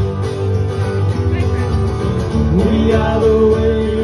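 Country/Americana band music with acoustic guitar playing steadily. A little past halfway, a new melody line slides up into a long held note.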